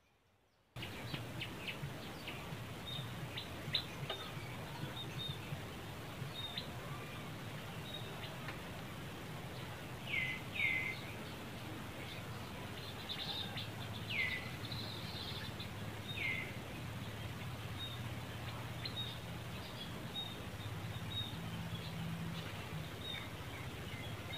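Outdoor ambience that starts abruptly about a second in: a steady low hum under scattered high chirps, with a few short calls falling in pitch between about ten and sixteen seconds in.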